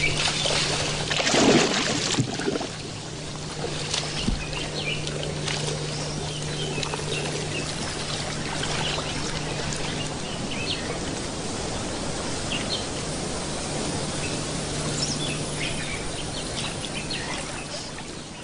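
Water splashing and sloshing as crocodiles mate in the shallows, loudest in a burst about a second and a half in, then settling to steady lapping. Scattered bird calls sound over it.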